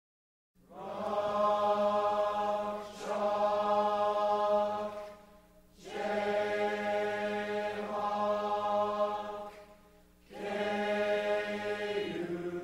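Slow choir-like vocal music of long held chords, starting about half a second in and moving in phrases a few seconds long with brief dips between them.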